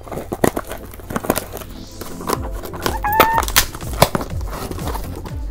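A shipping package being opened by hand: a run of clicks, knocks and handling noises, with a short squeak about three seconds in.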